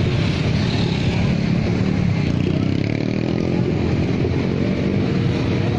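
Street traffic dominated by motorcycle engines running and passing, one engine standing out more clearly in the middle, over the chatter of a crowd.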